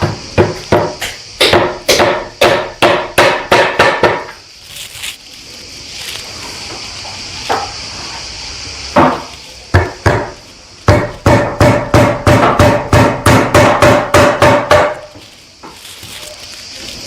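Hammer blows driving nail-in anti-noise pads into wooden chair legs. There are two quick runs of strikes, about three a second at first and about four a second near the end with a ringing note, and a few single taps in between.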